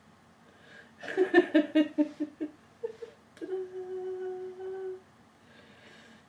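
A person's voice: a quick run of laughing pulses, then a brief note and a steady hum held for about a second and a half.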